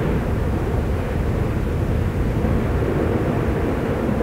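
Steady low rumbling roar of an erupting volcano, lava churning and spilling from an active crater. The roar holds an even level without breaks.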